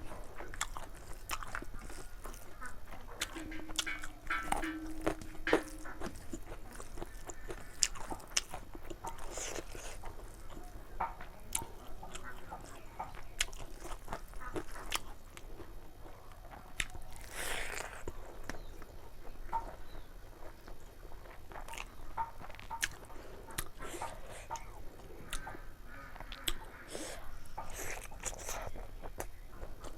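Close-miked chewing and biting of chicken curry (liver, gizzard and feet): wet mouth smacks and irregular crunchy clicks, with no set rhythm.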